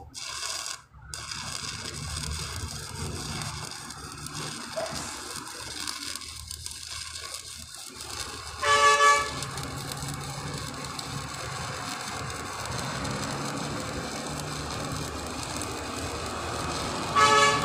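Electric arc welding on a steel column base, a steady crackling hiss with a low hum beneath it. Two short horn blasts cut in, one about 9 seconds in and one near the end.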